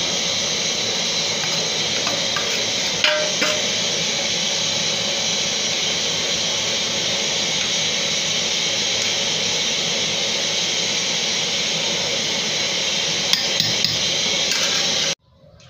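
A metal spoon clinking and scraping against a metal pan of jollof rice as onion and tomato are stirred in, a couple of times about three seconds in and again near the end, over a steady hiss. The hiss cuts off abruptly just before the end.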